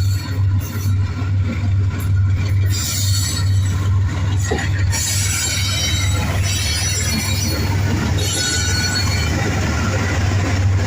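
Train running on the rails: a steady low rumble with wheel-on-rail noise that grows louder about halfway through, and a faint high wheel squeal near the end.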